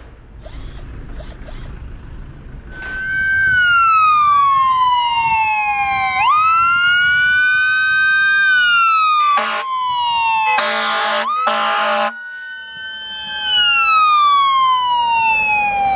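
Fire truck siren wailing, its pitch gliding slowly up and down, cut about halfway through by three short air horn blasts before the wail resumes. A low rumble runs under the first few seconds, before the siren starts.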